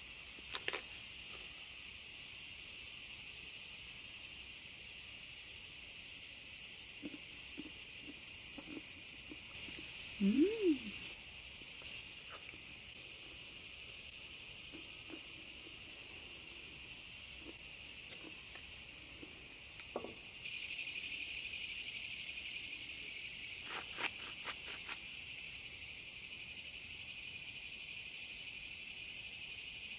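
Steady chirring of night insects, with a few sharp clicks of peanut shells being cracked open by hand. About ten seconds in there is a brief low sound that rises and falls, the loudest moment.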